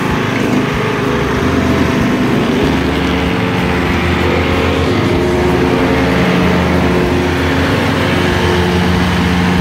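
John Deere LA105 riding lawn mower running steadily with its blades engaged (PTO on), spinning under the deck while a garden hose feeds water through the deck-wash port to loosen caked wet grass.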